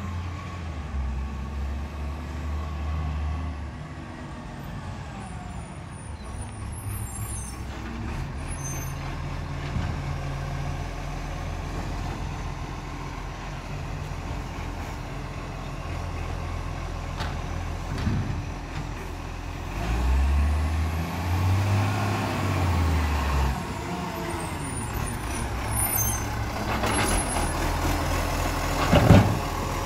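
Diesel side-loader garbage truck approaching and pulling up at the kerb, its engine running steadily with brief air-brake hisses. The engine revs up and back down once about two-thirds of the way through, and a loud clank comes near the end as the loading arm reaches the bin.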